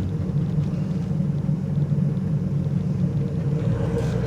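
Steady low rumble of a Renault Trafic van's engine and road noise, heard from inside the cab while driving.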